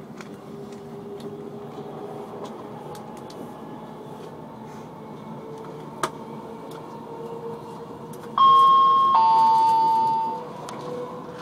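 Steady running noise of a moving passenger train heard from inside the carriage. About eight seconds in, the train's public-address system sounds a loud two-note falling chime, a high note then a lower one that rings for about two seconds. The chime signals that an onboard announcement is about to follow.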